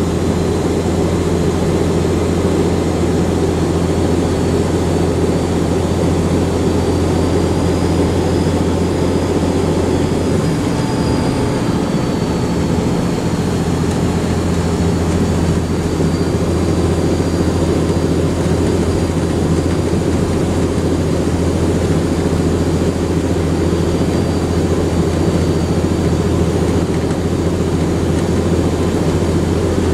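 Volvo Olympian double-deck bus's turbocharged diesel engine running under way: a steady low engine drone with a thin, high turbo whistle above it. The whistle rises a little in pitch, dips again and then holds.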